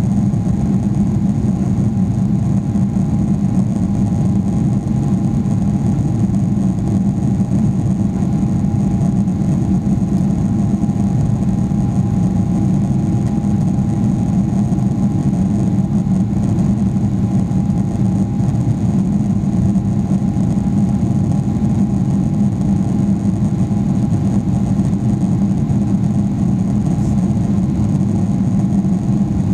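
Steady drone of a Boeing 777-300ER's GE90 turbofan engines and rushing air, heard from inside the cabin, with a faint steady whine above it. The level holds unchanged throughout.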